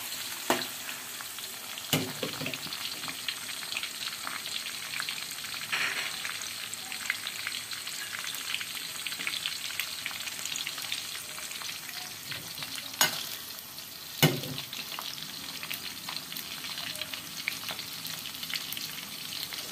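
Sliced garlic and onion sizzling in hot oil in a wok, a steady crackle of fine spits. A spatula knocks against the wok a few times, sharpest about 13 and 14 seconds in.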